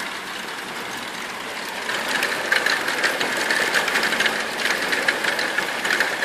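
Hail and heavy rain coming down, a dense stream of small ice impacts clicking rapidly over a steady hiss of rain, growing denser and louder about two seconds in.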